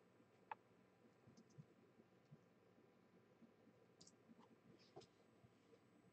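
Near silence with a handful of faint computer-mouse clicks, the clearest about half a second in.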